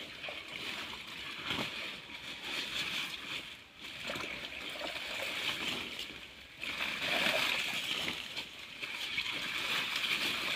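Shallow muddy pond water splashing and sloshing as hands grope through it among water hyacinth, irregular, getting louder past the middle.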